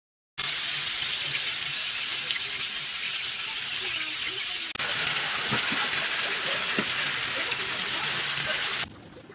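Food frying in a hot pan: a steady sizzling hiss that starts abruptly, gets louder about halfway through and cuts off suddenly near the end.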